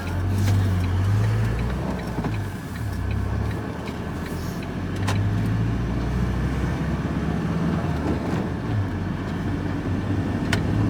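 Van engine and road noise heard from inside the cab while driving, the engine note shifting up and down a little, with a couple of sharp clicks about halfway and near the end.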